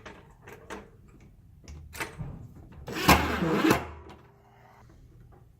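A power cord and a plastic screw-mount zip tie being handled: a few light clicks and taps, then a louder scraping rustle about three seconds in that lasts under a second.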